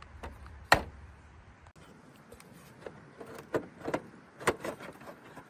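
Handling noise in a truck's dash radio opening: a sharp plastic click, then a run of irregular light knocks and clicks as parts are fitted into the trimmed opening.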